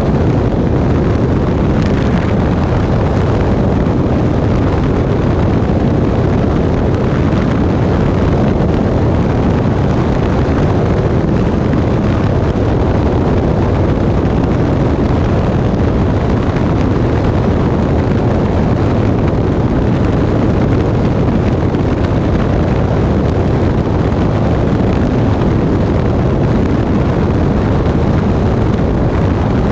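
Loud, steady rush of airflow buffeting a microphone mounted under an aircraft in flight, with the aircraft's engine running beneath it.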